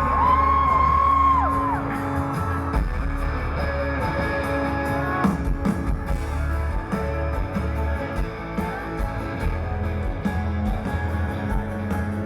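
Live country band playing an instrumental passage, with guitar to the fore over bass and drums. A high held note rings out for about the first second and a half.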